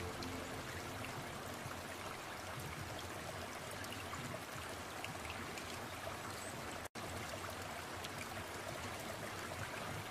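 Steady sound of running, trickling water, broken by a momentary drop-out about seven seconds in.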